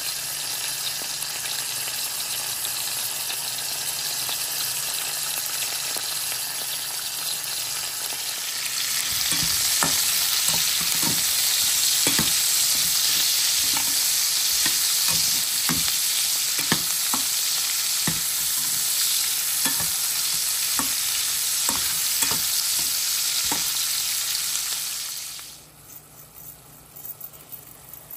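Oil sizzling in a frying pan, first under whole milkfish (bangus), then louder about nine seconds in as onion rings fry, with a spatula knocking and scraping against the pan. The sizzle drops away suddenly near the end.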